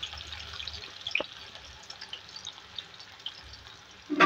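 Sliced onions sizzling and crackling in hot oil in a karahi, just added to the oil, the sizzle slowly easing off. A light knock comes about a second in, and a sharper, louder knock right at the end.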